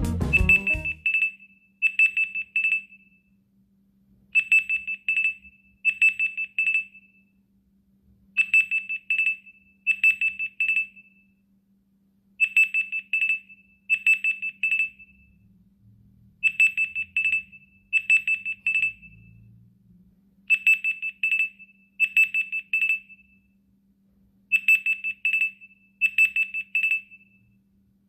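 Soyes XS15 mini Android phone's alarm ringing: quick high beeps in clusters of about four, two clusters close together, the pair repeating about every four seconds.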